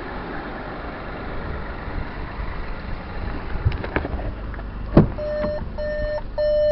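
VW T-Cross's three-cylinder turbo engine idling, running smoothly. Near the end come a few sharp clicks as the car door opens, then the car's warning chime starts beeping about twice a second.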